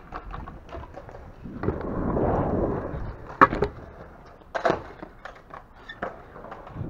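Stunt scooter wheels rolling over a concrete skatepark surface with a rushing sound, then two sharp clacks of the scooter on the concrete about three and a half and four and a half seconds in, the first the loudest.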